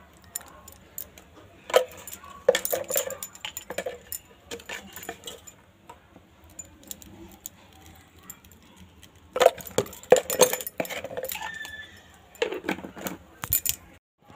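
Metal cooking utensils clinking and clattering: a steel plate used as a lid and an aluminium pot being handled. The clatter comes in clusters, about two seconds in, again around nine to eleven seconds, and once more near the end.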